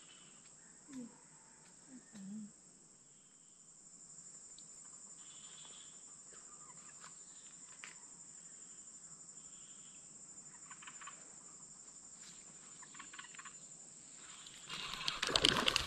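Steady, high-pitched chorus of insects shrilling from the pond-side vegetation. Shortly before the end, a burst of loud rustling and handling noise drowns it out.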